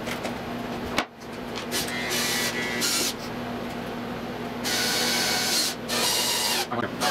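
Makita cordless drill/driver driving screws into MDF, its motor whirring in several short runs, the longest about two-thirds of the way through. There is a sharp knock about a second in.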